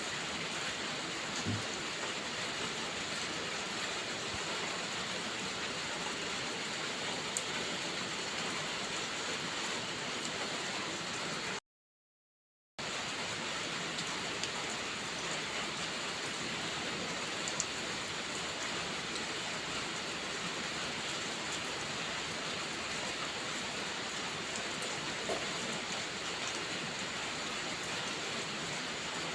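Steady heavy rain, a dense even hiss, with a few faint pops from a crackling wood fire. The sound cuts out completely for about a second near the middle.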